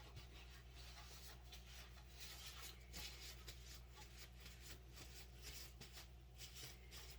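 Near silence: faint, irregular rustling and rubbing of hands handling materials, over a steady low electrical hum.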